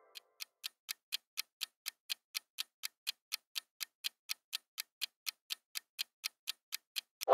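Countdown-timer sound effect: a steady clock-like ticking, about four ticks a second, marking the guessing time.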